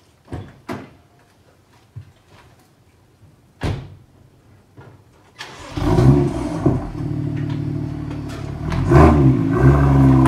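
A car door thumps shut about three and a half seconds in, then the BMW M2's turbocharged N55 straight-six starts up about two seconds later, flaring on the start and settling into a steady run, with a brief rise in revs near the end.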